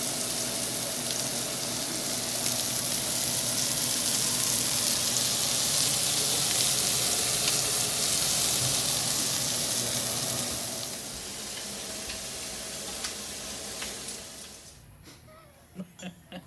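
Shell-on garlic shrimp frying on a hot stovetop griddle: a steady sizzling hiss that eases about eleven seconds in and stops near the end.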